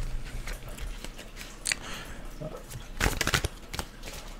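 An oracle card deck being shuffled and handled: a few short, papery riffles and taps, the loudest cluster about three seconds in.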